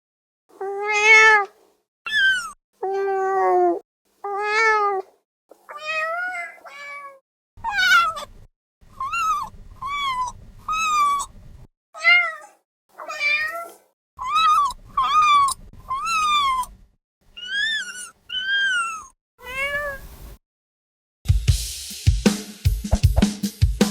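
A kitten meowing over and over, about twenty separate high, short meows, some rising and some falling in pitch. About three seconds before the end, music with a steady drum beat takes over.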